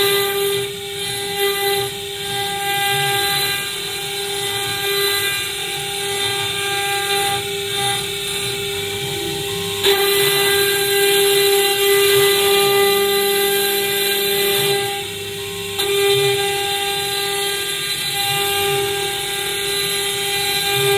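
Spindle of an STS1325H stone CNC machine running with a steady high whine while its bit carves lettering into a black stone plaque under a water coolant spray, with the grinding hiss of the cut beneath it.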